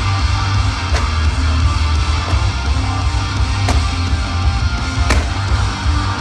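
Loud rock music with heavy guitar over a deep, steady bass, and sharp cracks about every second and a half.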